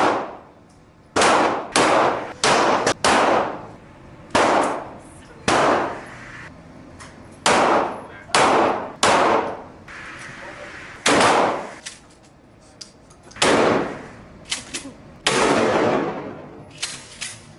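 Gunshots at a shooting range: about a dozen sharp reports at irregular intervals, each with a short echoing tail.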